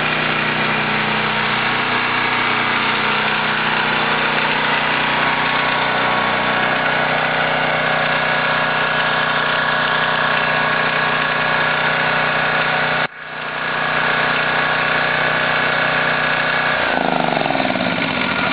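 Tecumseh 10 hp single-cylinder engine of a Coleman Powermate 5000 ER generator running steadily just after a cold start. The sound drops out for a moment about two-thirds through. Near the end the engine note falls as it is shut off and slows down.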